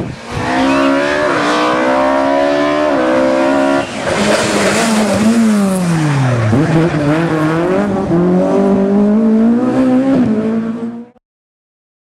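Rally car engine at full throttle, its note climbing through the gears with brief breaks at each shift. Midway the note drops steadily for about two seconds, then climbs hard again. The sound cuts off suddenly near the end.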